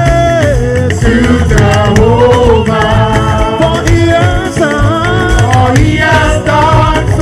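Live gospel praise music: several singers on microphones leading a song over a band with drum kit and keyboards, with a steady beat.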